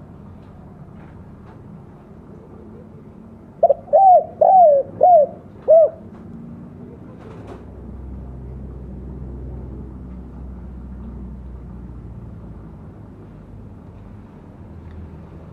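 Spotted dove (tekukur) giving one cooing phrase about four seconds in: a short run of about five arched coos lasting about two seconds. A steady low rumble of background noise lies underneath.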